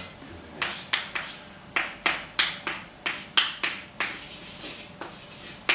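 Chalk writing on a blackboard: a quick run of about a dozen short taps and scratches as letters and symbols are chalked.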